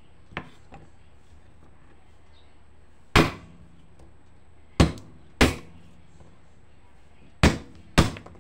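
Kitchen knife smacked down on garlic cloves on a wooden chopping board to crush them: a faint knock just after the start, then five sharp knocks at uneven intervals, two of them close together near the end.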